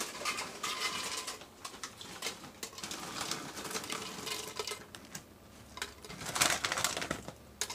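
Pork rinds (chicharrones) tipped from a plastic bag into a plastic blender cup: light, irregular ticks and patter as the pieces drop in, with a louder rustle of the bag near the end.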